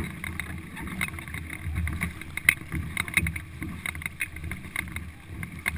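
Paddle strokes splashing and water rushing along the hull of a four-person racing canoe under hard paddling. Irregular sharp knocks and clicks sound through it, the loudest about two and a half seconds in.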